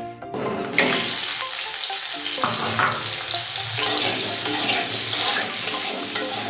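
Boiled potato pieces sizzling in hot oil in a kadai, the hiss and crackle starting as they hit the oil, then stirred with a spatula scraping and clicking against the pan as they shallow-fry to brown lightly.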